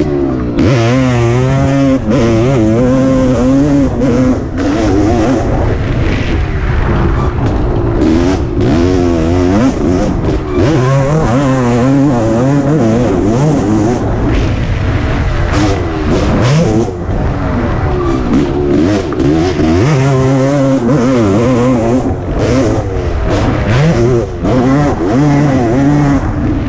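1988 Suzuki RM250 two-stroke single-cylinder motocross engine being ridden hard, its pitch climbing and dropping over and over as the throttle opens and closes through the gears. Irregular bursts of rushing noise come and go over the engine.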